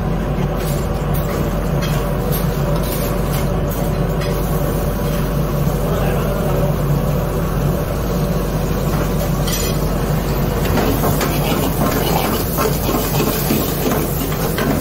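Steady low rumble and hiss of a commercial kitchen: high-output gas burners and the extraction fans running continuously.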